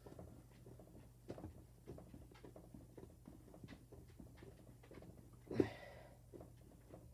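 Faint scattered clicks and taps of screws and hardware being handled, with one louder short sound about five and a half seconds in, over a steady low electrical hum.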